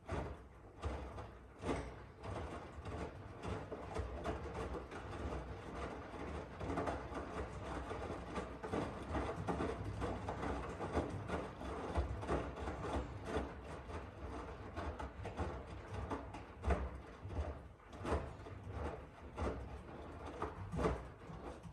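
Miele W1 washing machine running, with irregular knocks and rubbing sounds over a steady low rumble.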